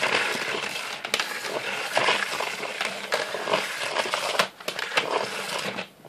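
Power cord being pulled out of the cord-rewind reel of a 2002 Numatic Henry HVR200 vacuum cleaner: a continuous scraping of the flex sliding out, with scattered clicks and rattles, easing off near the end.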